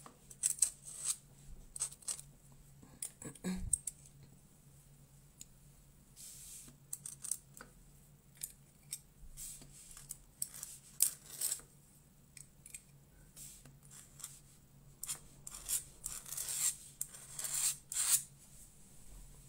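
Steel nib of a dip pen (a mapping pen) scratching across watercolour paper in short, irregular strokes as it draws ink lines. There is one knock about three and a half seconds in.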